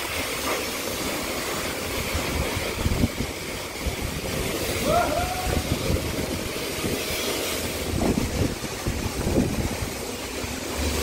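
High-pressure wash wand spraying water that hisses and splashes against a car and the concrete floor of a car wash bay. A brief gliding chirp sounds about five seconds in.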